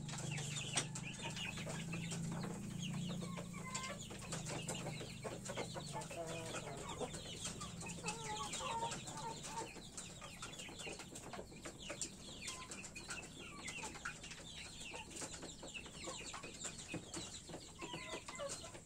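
Chickens clucking, with chicks peeping in quick high chirps throughout. A low steady hum underneath fades out about seven seconds in.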